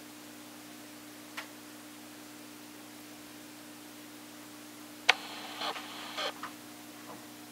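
A steady low hum throughout. About five seconds in there is a sharp click and about a second of rustling and scuffing as the camera is handled and moved, followed by two light clicks.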